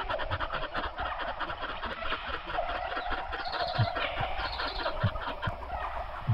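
Domestic fowl calling: a dense, rapid chatter of clucks and short calls, with a few low thumps among them.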